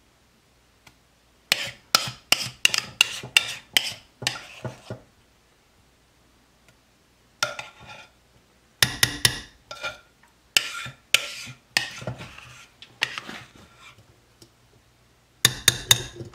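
A metal spoon scraping and clinking against a mixing bowl and a ceramic slow-cooker crock as thick cake batter is spooned out, in three runs of quick scrapes and taps with short pauses between.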